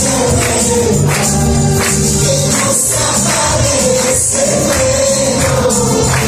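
Loud, lively church worship music: a group of voices singing together over bass notes and a tambourine, with a steady beat.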